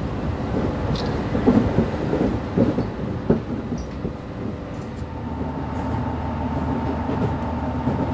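KiHa E130 series diesel railcar running at speed, heard from inside, its wheels knocking irregularly over rail joints under a steady running noise. About five seconds in, a steady whine and a deeper engine hum set in.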